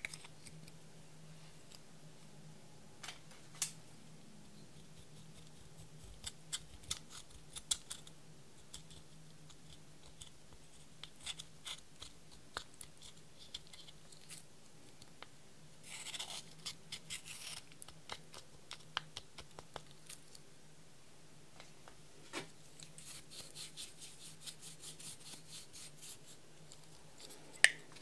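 Pressed eyeshadow being scraped and crumbled in its plastic compact with a metal tool: scattered small clicks and scratches, with two spells of steady scraping in the middle and the second half. A sharp tap comes near the end.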